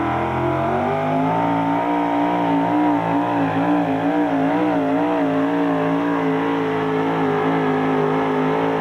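Supercharged engine of a Ford super modified 4x4 pulling truck at full throttle, dragging a weight sled. The pitch climbs over the first second or so, then holds high with a wavering that rises and falls repeatedly through the middle as the truck works against the sled.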